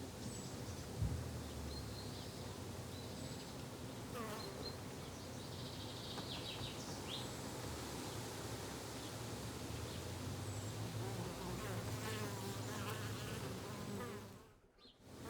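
Flying insects such as bees and flies buzzing in a garden, the buzz wavering up and down in pitch as they fly past, with a few short high chirps. The sound dips almost to silence for a moment just before the end.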